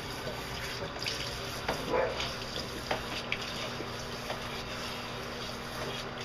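Handheld shower spraying water steadily onto an Old English Sheepdog's long wet coat in a bathtub, rinsing out conditioner, with small splashes and drips. There is a brief louder splash about two seconds in.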